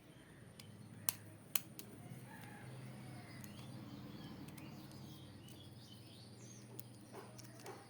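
Two sharp clicks about a second apart, from parts or tools being handled as the wall fan is opened up. Under them runs a faint low hum, with faint bird chirps in the background.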